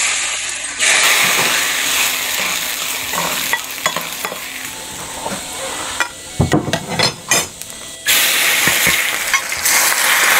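Food sizzling in a hot wok while a spatula stirs it. Sharp knocks and scrapes of the spatula against the wok come in the middle, between stretches of steady sizzling.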